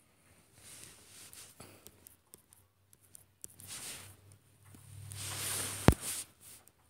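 Faint rustling and handling noises, with a louder rush of noise about five seconds in that ends in a sharp click.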